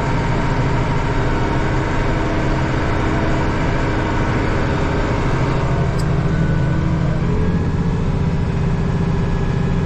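International Harvester 1586 tractor's six-cylinder diesel engine running steadily under load while pulling an implement down a garden row.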